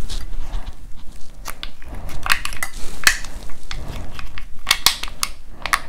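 Irregular crinkling and crackling of a small plastic ketchup packet being torn and squeezed out by hand.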